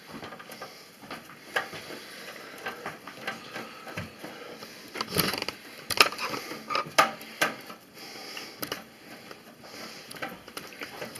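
Small coarse-thread screws being driven by hand through a motherboard into a computer case: irregular small clicks, ticks and metal scraping, with a cluster of louder knocks about five to seven seconds in.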